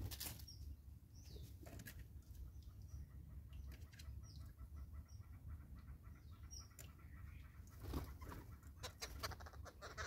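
Small birds at a feeding table: short high chirps every second or two, then a flurry of wing flaps near the end as a larger bird flies in and lands. A steady low rumble lies underneath.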